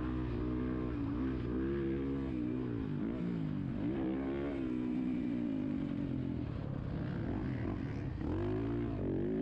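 2023 Yamaha YZ450F's 450 cc single-cylinder four-stroke engine, revving hard as the dirt bike is ridden fast around a motocross track. The pitch rises and falls again and again with the throttle. Revs drop briefly about eight seconds in, going into a corner, then climb again.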